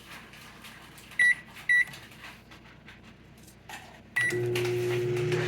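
Microwave oven keypad beeping twice as the time is keyed in, with faint button clicks. About four seconds in, a third beep starts the oven, which settles into a steady, louder running hum.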